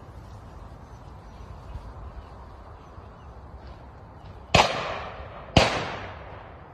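Two shotgun shots about a second apart, each a sharp crack followed by a fading echo.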